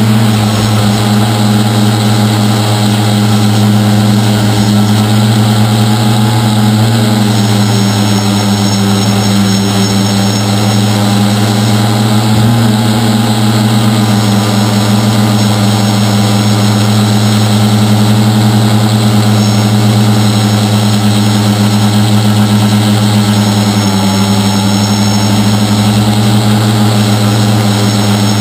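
A tricopter's three electric motors and propellers running, heard loud and close from the camera mounted on the craft as it lifts off and climbs: a steady buzzing drone whose pitch dips slightly about seven seconds in and again near the end.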